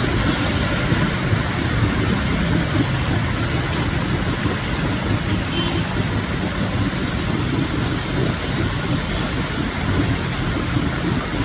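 Rainwater gushing out of a drain outlet and splashing onto wet ground in the rain: a steady, loud rushing of water.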